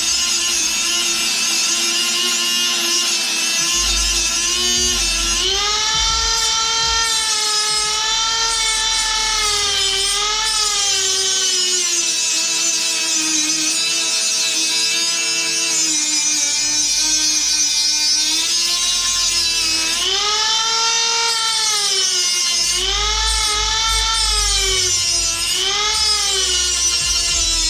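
Dremel rotary tool grinding down the pin ends of a motorcycle drive chain link. It runs continuously with a high whine that wavers up and down in pitch.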